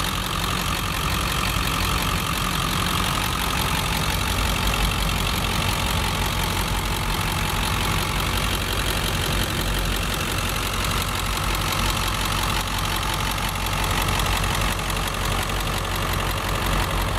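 2002 Ford F250's 7.3-litre Powerstroke V8 turbo diesel idling steadily, heard close over the open engine bay; the engine is purring smoothly, in good running health.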